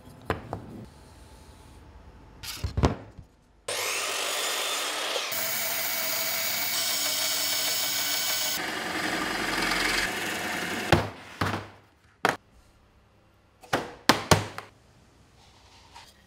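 A small power saw starts up about three and a half seconds in, its motor whine rising, then cuts through a thin pine board for several seconds and stops around eleven seconds in. Before and after it come light clicks and a few sharp knocks of wooden pieces being handled and set down on the bench.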